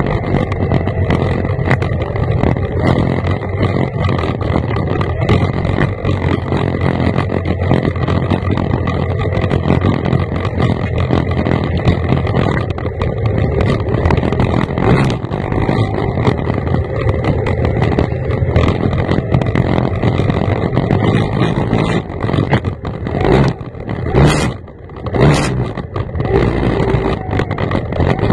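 Formula 1 racing tunnel boat's outboard engine running hard at racing speed, with wind and water rush, from on board. Near the end the sound drops away and surges back several times in quick succession.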